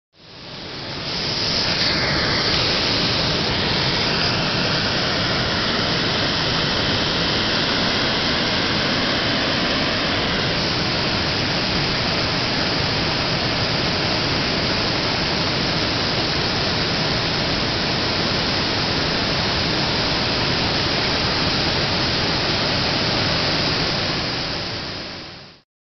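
Fast-flowing muddy water rushing in a steady, even roar, fading in at the start and fading out near the end.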